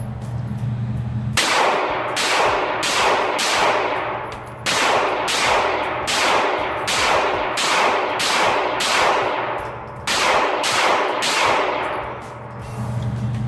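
9mm pistol fired in quick succession in an indoor shooting range, each shot ringing off the hard walls. About eighteen shots come in three strings, roughly two a second, with short breaks about four and ten seconds in, and the firing stops about a second before the end.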